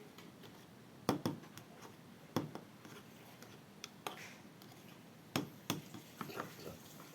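Handling noises from kitchen utensils and containers: several sharp clicks and knocks, a second or so apart, with a quick cluster of lighter taps near the end.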